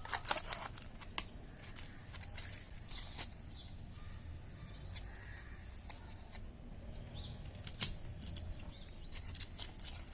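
Decorative-edge craft scissors clicking and snipping at a plastic-and-foil tablet blister strip, with crinkling of the strip between sharp clicks. The blades are failing to cut through it.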